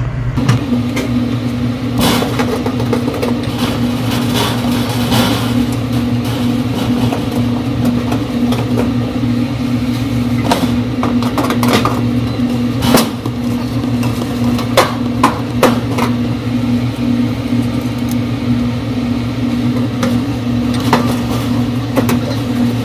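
A steady low electrical hum with a slight pulsing, with scattered clicks and knocks of hands and tools working on a refrigeration unit's controller wiring.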